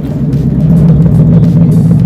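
Boat engine running, a steady low drone.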